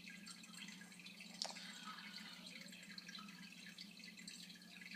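Faint clicks and rustles of a trading card being handled and turned over, with one sharper tick about a second and a half in, over a steady low hum.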